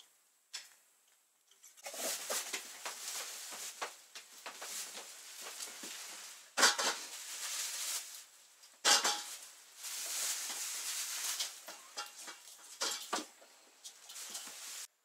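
Close rustling and scuffing as a man rubs and handles a dog in a small wooden cabin, with two sharp knocks about halfway through. The sound cuts off suddenly near the end.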